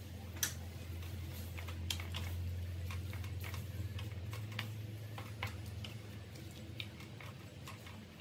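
Wooden spatula stirring broccoli in a metal wok with a little water: irregular clicks and light knocks of the spatula and pieces against the pan, over a steady low hum.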